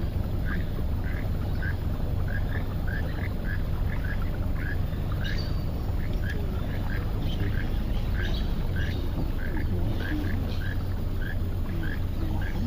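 A regular series of short, frog-like croaking calls, about two a second, from an unseen animal. A low steady hum runs underneath.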